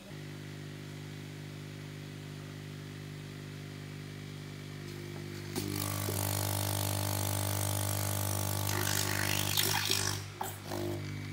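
A steady motor hum that grows louder with added hiss about halfway through, with a few clicks near the end before it drops back.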